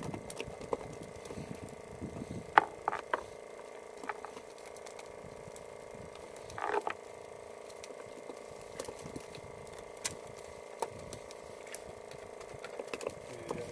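A steady hum with scattered light clicks and knocks, one short louder sound about two-thirds of the way through.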